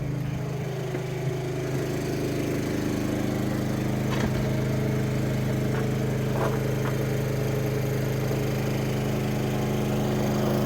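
Honda portable generator engine running steadily under a heavy load, a constant even drone.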